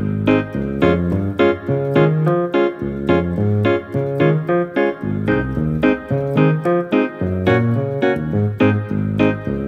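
Electronic arranger keyboard played with both hands in a piano voice: a steady reggae-style pattern of chords over a stepping bass line.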